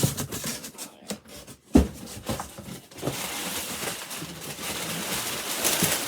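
Cardboard shipping box being opened by hand: scattered clicks and knocks, a heavy thump about two seconds in, then about three seconds of steady scraping and rustling of packaging.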